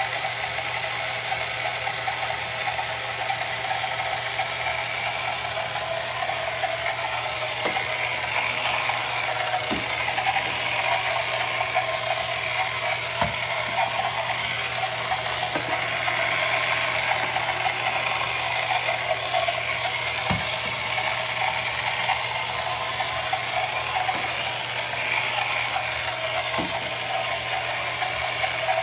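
The 1968 Ideal Motorific toy outboard runs steadily. Its small battery-powered electric motor and gear drive make a constant whirring, rattling buzz, with a few faint ticks here and there.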